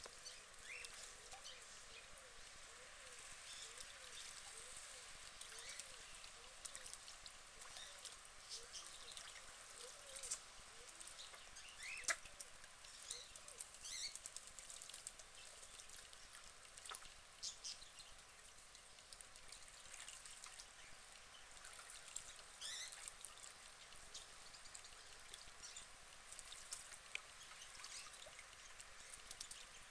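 Faint water splashing and dribbling as a female mallard dabbles and bathes in a shallow pond, with many small irregular splashes. A few short, high chirps come and go in the background.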